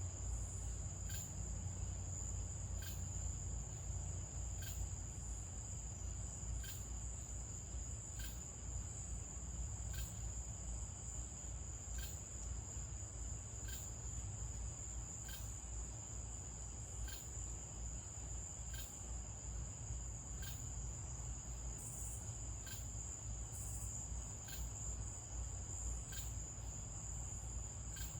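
Crickets and other night insects trilling steadily in a high continuous tone, with a separate sharp chirp or click repeating about every one to two seconds, over a low steady rumble.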